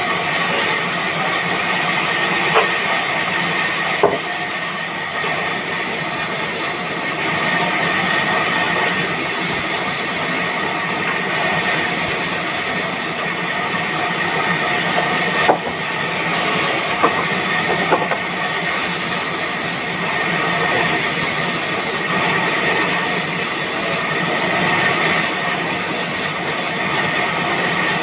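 Band sawmill running and cutting wood: a steady, loud machine noise with a bright high-pitched cutting sound that comes and goes every second or two, and a few sharp knocks.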